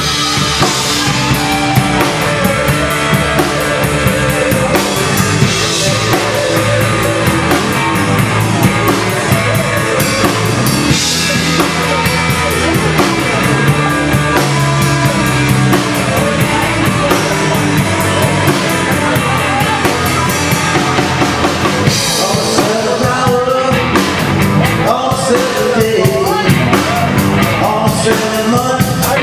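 Live rock band playing through a PA: electric guitars, bass guitar and a drum kit keeping a steady beat.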